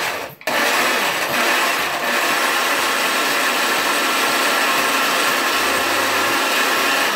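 Countertop blender motor running at speed, blending garlic and onion; it cuts out briefly about a third of a second in, then runs on steadily.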